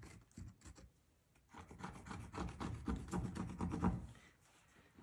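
Pencil scratching across a wooden subfloor as it traces around a round drain fitting, faint at first, then a steady run of rubbing strokes from about a second and a half in for a few seconds.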